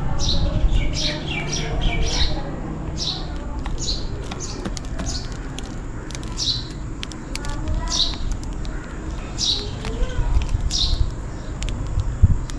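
House sparrows chirping: short, high chirps repeated about once a second, over a low background rumble.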